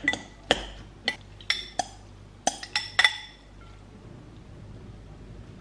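A metal fork clinking repeatedly against a glass mixing bowl while stirring, about eight ringing clinks over the first three seconds.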